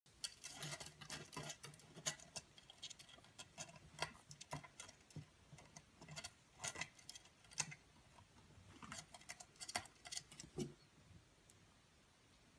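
A ferret's claws scratching and clicking at the edge of a wooden drawer as it paws and tugs at it, with the drawer knocking as it shifts. The clicks come in irregular clusters.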